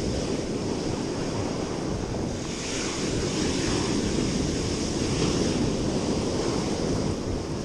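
Ocean surf breaking and washing up the beach, with wind buffeting the microphone. The wash swells louder from about two and a half seconds in, then eases.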